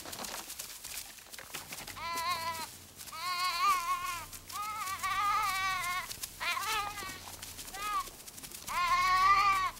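Sheep bleating in alarm as a wolf attacks the flock: about six quavering bleats one after another, some overlapping, starting about two seconds in, the last one the loudest.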